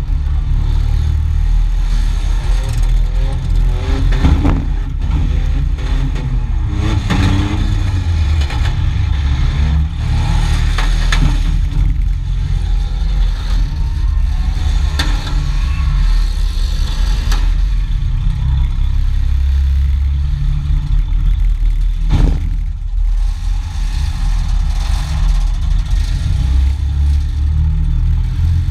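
Demolition-derby vehicle's engine running and revving, a heavy low rumble heard from inside the gutted cab, with metal clattering and several sharp knocks, the clearest about three-quarters of the way through.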